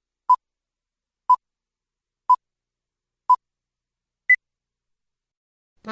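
Countdown leader beeps: four short electronic beeps one second apart, then a fifth beep at a higher pitch.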